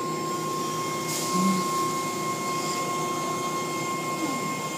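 Automatic tunnel car wash machinery running, heard from inside a car: a steady mechanical drone with a constant high whine, and a brief hiss about a second in.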